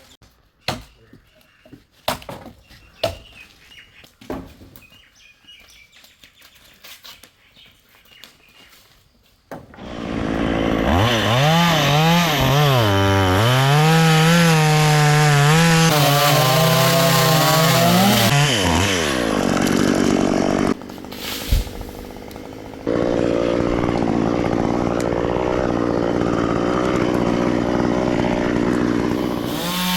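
Stihl two-stroke chainsaw starts up about ten seconds in and runs loud, its pitch rising and falling as it revs and cuts into wood. Near two-thirds through it drops back to a lower level for a few seconds, then runs steadily again. Before it there are only scattered knocks and clicks.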